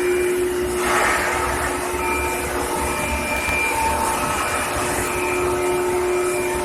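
Steady industrial machinery noise from a pipe heat-treatment line, with several steady whining tones that fade in and out over a constant hum.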